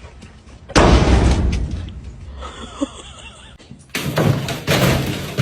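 A sudden loud thump about a second in, dying away over a second or so, followed later by a stretch of louder rustling noise.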